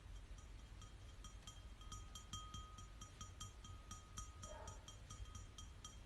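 Faint chiming: small metallic strikes repeat several times a second, each ringing at the same high pitch, with one tone held for about two seconds in the middle. A steady low hum runs underneath.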